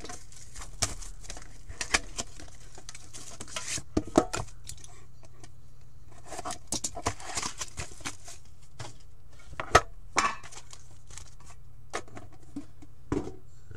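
Hands opening a hockey card box: cardboard and plastic wrapping rustling and crinkling, broken by sharp clicks and knocks as the box and the metal tin inside it are handled. The loudest knock comes about ten seconds in.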